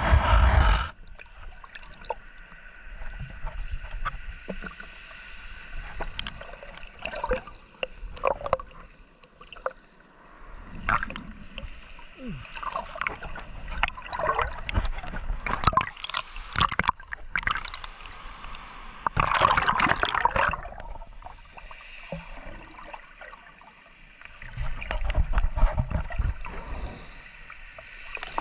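Water sloshing and gurgling around a camera held underwater, with irregular knocks and rubbing against the camera body that come and go in louder flurries.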